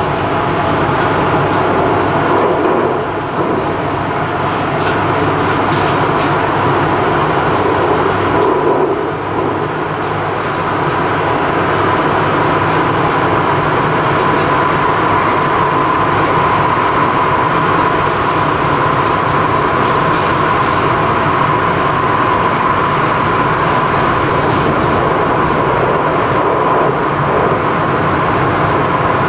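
Prague metro train running at speed, heard from inside the carriage: a loud, steady rumble of wheels and running gear on the rails, with a high steady whine that grows stronger about ten seconds in.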